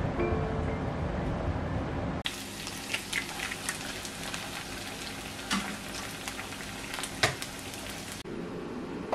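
Food sizzling in a hot frying pan, an even hiss dotted with sharp crackles and pops, starting abruptly about two seconds in and cutting off about a second before the end. Before and after it, a low steady rumble.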